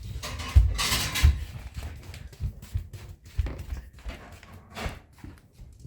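Pomeranian puppy playing with a toy: a string of irregular knocks and thumps, with a short rustling burst about a second in.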